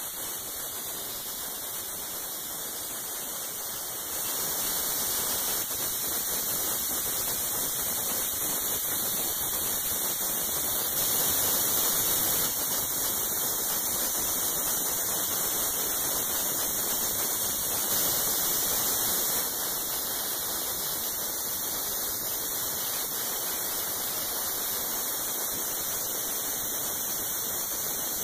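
Plastic media blast nozzle running: a steady hiss of compressed air driving plastic grit against a fiberglass body panel, stripping its paint. It grows louder about four seconds in and swells briefly twice more later on.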